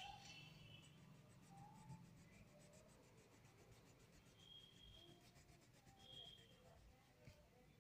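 Faint scratching of an oil pastel rubbed over paper in quick repeated strokes while colouring.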